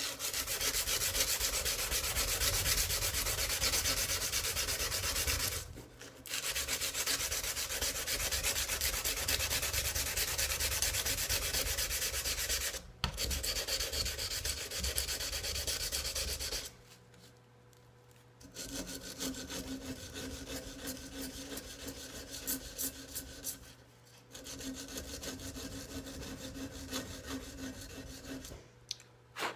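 120-grit sandpaper on a flat paint stick, scraped back and forth by hand along a tanto knife blade. It comes in long runs with short pauses and is softer in the second half.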